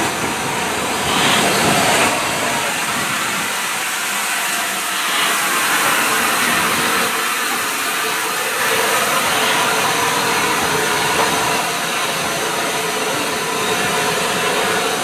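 Steam locomotive 35018, a rebuilt Bulleid Merchant Navy class Pacific, standing with steam hissing steadily from it.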